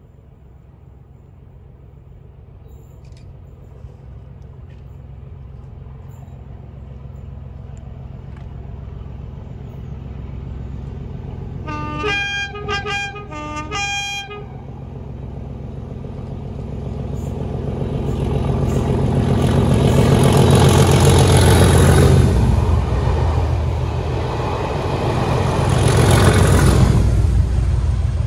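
Class 37 diesel locomotives with English Electric V12 engines approaching, their engine rumble growing steadily louder; about twelve seconds in, the two-tone horn sounds in several short blasts. The engines then pass loudly, one and then the second about five seconds later, the loudest part of the sound.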